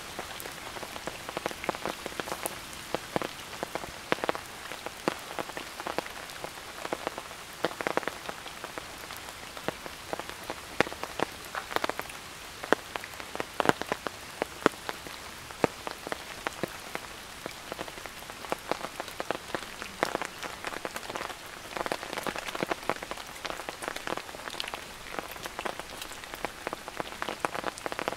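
Steady rain: an even hiss with many sharp, separate drop hits throughout.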